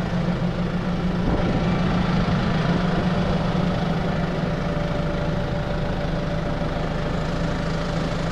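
Fendt 313 tractor's diesel engine idling steadily, with no revving.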